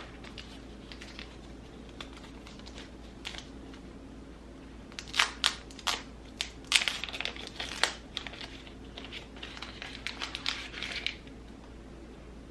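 Packaging being handled and unwrapped, crinkling and rustling in irregular bursts. It is faint at first and loudest from about five to eight seconds in.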